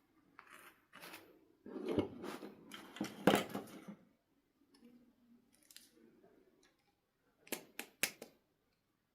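Hands handling a doll and its plastic packaging: a run of rustling and crackling in the first few seconds, then a quick cluster of sharp clicks about seven and a half seconds in.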